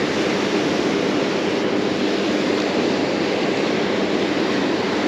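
Ocean surf washing steadily onto the beach, with wind rushing on the microphone.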